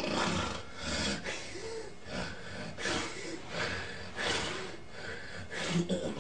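A sleeping person snorting and gasping in a quick series of noisy breaths, about one every second or less, starting suddenly after a quiet pause. This is the kind of gasping that marks the airway reopening after an obstructive sleep apnea.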